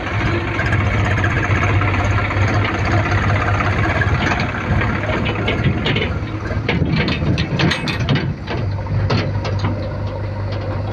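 Diesel engine of heavy machinery running steadily, with a string of sharp clicks and knocks over the second half.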